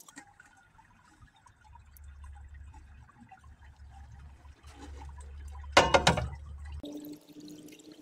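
Blue copper nitrate solution trickling and dripping through a filter cloth into a plastic bucket, with a low steady rumble under it. About six seconds in comes a brief, loud clatter, from the glass beaker of leftover metal connectors being handled.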